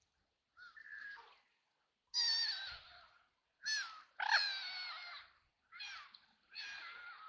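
White domestic ducks quacking: a run of harsh, drawn-out quacks of up to about a second each, with short pauses between them, loudest about two and four seconds in.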